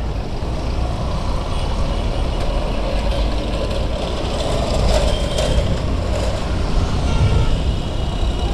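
Traffic heard from a moving Honda scooter: the scooter's engine running under a steady low rumble of wind and road noise. A few faint, short high-pitched toots from other vehicles come through around the middle and near the end.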